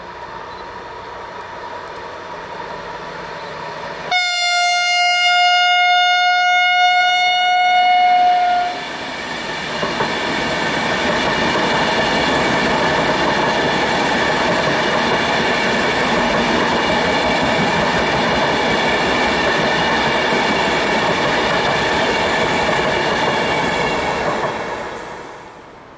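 Hellenic Train ETR 470 Pendolino electric tilting train approaching, sounding one long steady blast of its horn for about four seconds. It then runs past at speed with a loud, steady rush of wheels on rail, which cuts off abruptly near the end.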